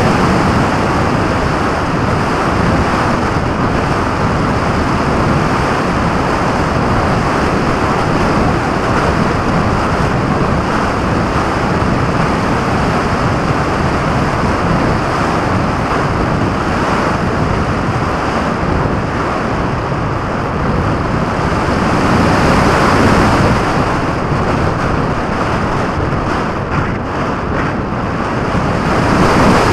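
Airflow rushing over the microphone of a camera mounted under a flying radio-controlled model plane's wing: a loud, steady rush with no motor tone, swelling a little about two-thirds of the way through and again near the end.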